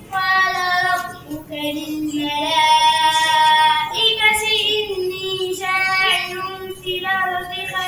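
A child's high voice singing a slow melody of long, held, wavering notes in several phrases, with short breaks between them.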